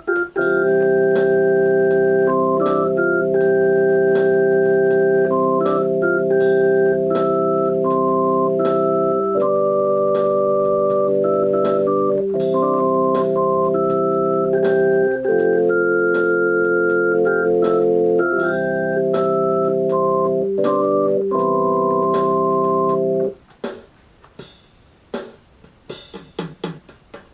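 Electronic keyboard on an organ voice, played with the feet and one hand: held chords over a bass line with a slow melody stepping above them. The chords cut off abruptly about 23 seconds in, leaving only a few faint clicks.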